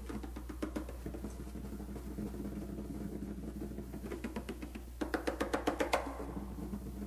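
Rock drum kit in a solo, played quietly with fast, light strokes, with louder flurries about four seconds in and again around five to six seconds in, over a steady low hum.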